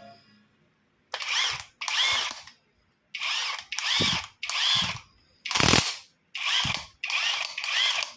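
Cordless impact driver run on its repaired battery in eight short trigger pulls, the motor whirring up and winding back down each time, with a mechanical rattle.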